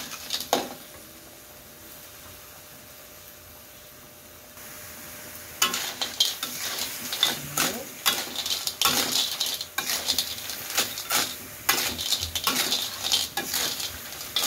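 A long metal spatula stirring siput mata merah snails in their shells through sambal in a wok: the spatula scrapes the pan and the shells clatter, with rapid irregular clicks and scrapes. A few clanks at the start, then a lull of about five seconds, then steady stirring from about five and a half seconds in.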